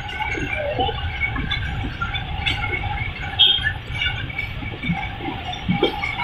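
Train running, heard from inside a passenger carriage: a steady low rumble and hum with scattered squeaks and rattles.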